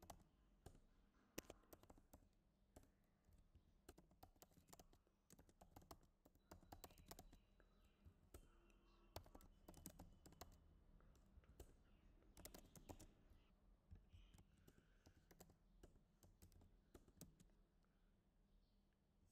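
Faint computer keyboard typing: irregular key clicks in short runs with brief pauses between them.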